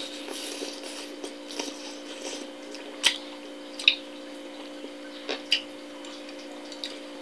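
Eating sounds: a person chewing a mouthful of rice porridge with soft wet mouth noises, and a few sharp clicks of a fork and spoon on a plate. The loudest clicks come about three and four seconds in, and two more around five and a half seconds. A steady low hum sits underneath.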